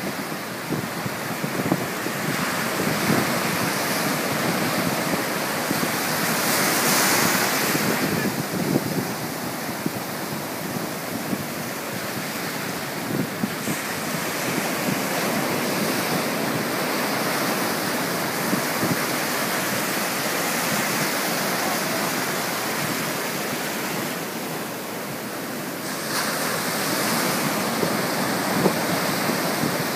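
Ocean surf breaking and washing up the beach in a continuous rushing wash. It swells louder twice, about a quarter of the way in and again near the end.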